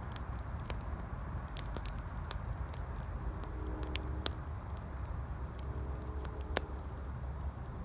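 Campfire crackling, with sharp pops at irregular intervals, over a steady rumble of highway traffic.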